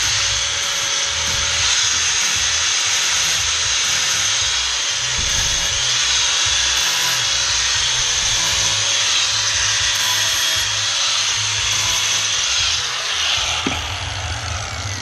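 Power grinder grinding steel chainsaw felling dogs (bumper spikes) to sharpen them: a steady, loud grinding hiss that eases off near the end.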